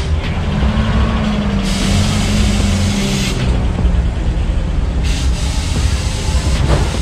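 Pickup truck engines rumbling as the lowered minitrucks roll in, with a loud hiss of air from about two to three seconds in.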